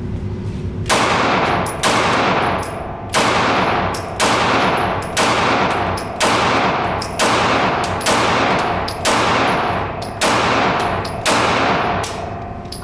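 Gunshots at a shooting range: about a dozen single shots in steady succession, roughly one a second, each with a ringing tail.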